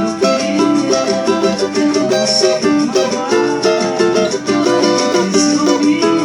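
Cavaquinho strummed in a steady samba-pagode rhythm, playing the song's chords between sung lines.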